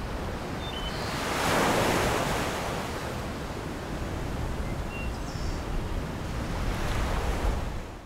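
Small waves washing onto a sandy lakeshore, with wind buffeting the microphone. A wave comes in louder about a second and a half in, and another near the end.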